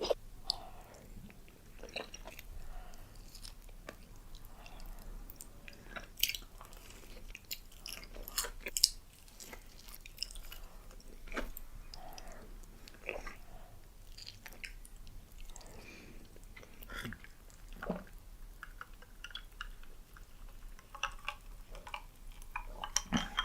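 Close-miked eating: irregular chewing and biting with mouth clicks and smacks, the loudest a sharp bite about nine seconds in.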